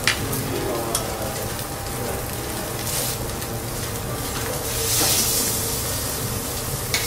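Thick Matsusaka wagyu steak sizzling on a hot teppanyaki griddle, its fat rendering onto the steel. A few light clicks come through, and the hiss swells louder about five seconds in.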